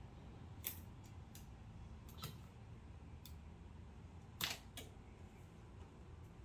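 A few light, sharp clicks and snaps as heat tape is pulled and torn off a tabletop tape dispenser and pressed onto sublimation paper, the loudest about four and a half seconds in, over a faint low hum.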